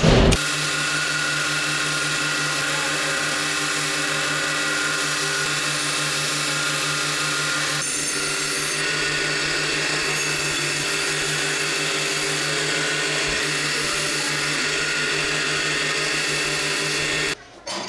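Bench grinder running with a wire wheel while a steel part is held against it to strip flash rust. A steady motor hum sits under a harsh scraping that grows brighter about halfway through, then cuts off suddenly near the end.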